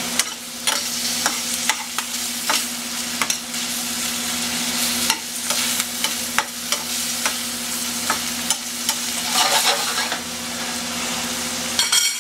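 Diced pre-cooked ham sizzling in a stainless steel skillet as it browns, with a spatula scraping and clicking against the pan as the cubes are stirred and turned.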